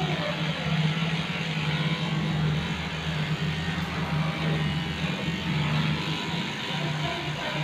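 Cordless electric dog clipper running with a steady low hum as the blade shaves through a matted coat.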